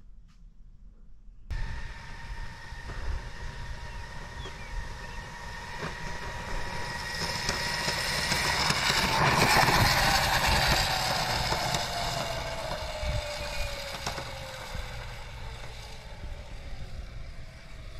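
Razor E150 electric scooter refitted with an E-flite Power 160 brushless RC-plane motor on 8-cell LiPo batteries, approaching and passing at speed. A steady high whine with tyre and wind noise grows louder to a peak about ten seconds in, then drops in pitch and fades as it goes by.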